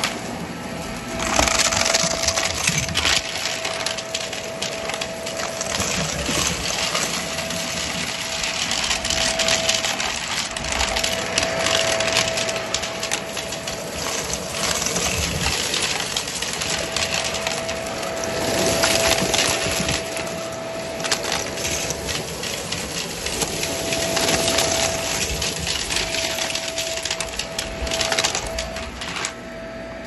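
Vacuum cleaner running with a steady whine while it sucks up a carpet strewn with glitter, confetti and coins. The bits crackle and rattle as they are pulled into the head, with coins clinking through.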